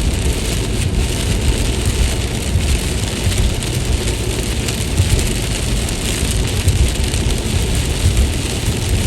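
Steady heavy rain falling, an even hiss of drops, over a strong, unsteady low rumble.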